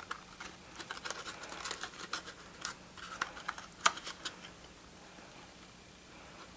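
Hands handling and adjusting paper craft pieces: scattered light rustles and small clicks, the sharpest about four seconds in, then quieter near the end.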